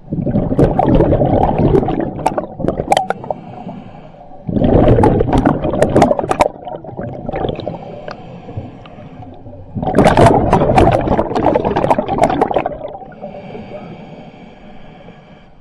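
A scuba diver breathing through a regulator underwater: three loud bursts of exhaled bubbles about five seconds apart, each followed by a quieter hissing inhalation.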